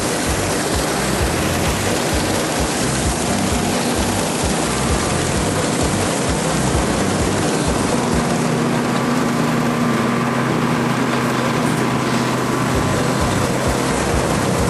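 Combine harvester working as it picks up swathed canola: a loud, steady machine noise of engine and threshing gear, with a few faint steady hums.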